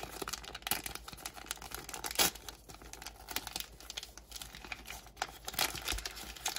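Plastic surprise packet being crinkled and torn open by hand: irregular crackling with one louder snap a little over two seconds in.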